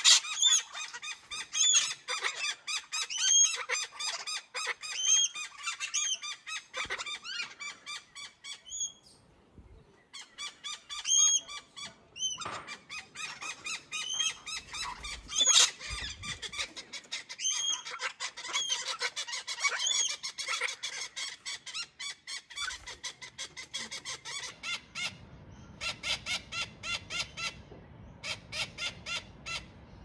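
Australian king parrots calling: fast strings of short, harsh calls with high whistled notes every couple of seconds. The calls pause briefly about nine seconds in, and near the end settle into an even, repeated run.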